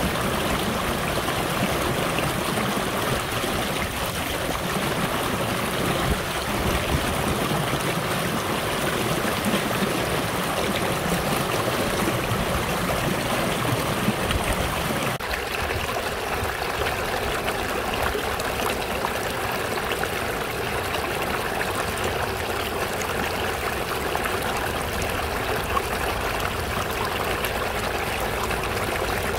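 Shallow stream running fast over pebbles and stones, a steady burbling rush of water. About halfway through it changes suddenly to a brighter, thinner splashing of water spilling over a rock, with less low rumble.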